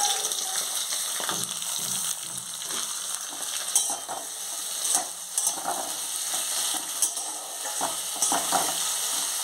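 Sliced onions sizzling in hot mustard oil in a kadai, with a metal spatula scraping and knocking against the pan now and then as they are stirred.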